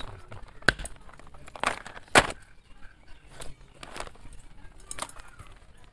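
Heavy knife chopping pieces of goat meat on a wooden stump block: about six uneven chops, the loudest a little past two seconds in.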